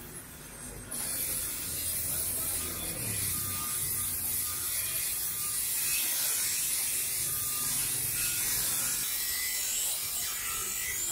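Bench grinder sharpening a steel butcher's blade on its grey stone wheel: a steady high grinding hiss of steel against the wheel that starts abruptly about a second in.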